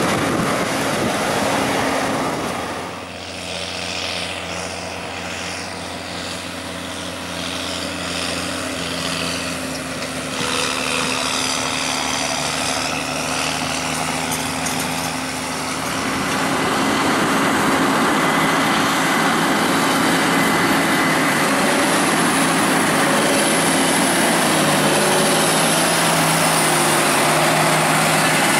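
Heavy harvest machinery running, combine harvester and tractor engines, as a steady mechanical drone. The sound changes abruptly about three seconds in and again about sixteen seconds in.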